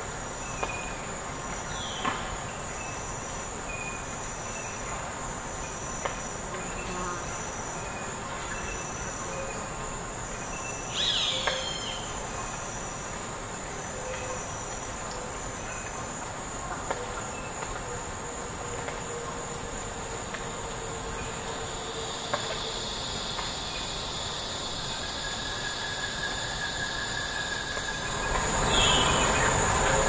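Forest ambience: birds calling, with a few sharp downward-sweeping calls, over a steady high whine and short repeating high pulses. About two seconds before the end, a broad rushing noise swells up and gets louder.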